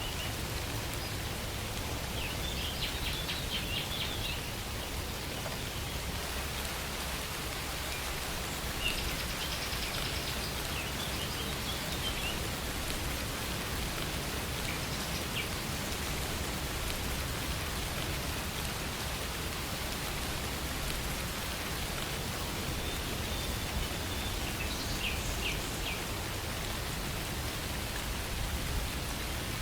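Steady rain falling, with birds chirping in short bursts now and then.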